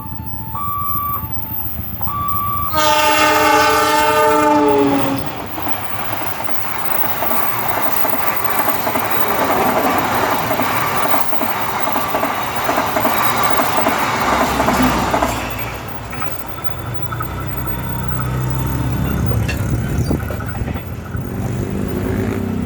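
A railway level-crossing alarm alternates between two notes. About three seconds in, a passing train's horn sounds loudly for about two seconds, sagging slightly in pitch. Then comes about ten seconds of the rumble and clickety-clack of the train's wagons going over the crossing, easing off into a lower rumble of engines.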